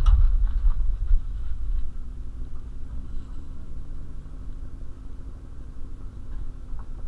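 Jeep driving slowly over a rough dirt road: a low rumble of engine and tyres, heavier in the first two seconds, with a sharp knock right at the start and the engine's steady hum underneath.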